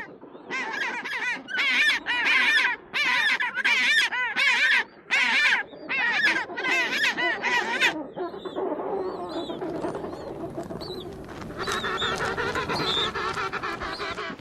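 Birds calling: a run of about nine loud, separate calls with short gaps, then a denser chorus of overlapping calls from about eight seconds in.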